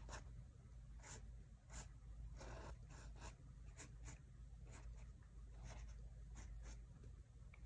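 Faint scratching of a pen on sketchbook paper: a series of short, quick strokes, with one longer scratch about two and a half seconds in.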